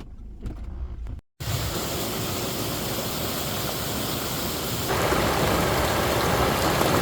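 A few faint clicks over a low, quiet hum, then after a cut a steady rushing noise like running water or heavy rain, stepping louder about five seconds in.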